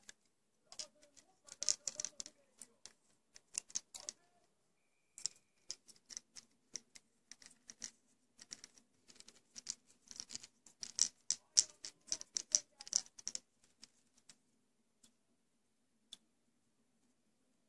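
Aluminium foil tape crinkling and crackling as fingers fold and press it around a fishing lure, in quick clusters of small crackles that die down about 13 seconds in.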